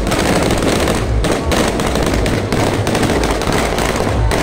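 Fireworks going off: a dense, continuous crackle of rapid small bangs.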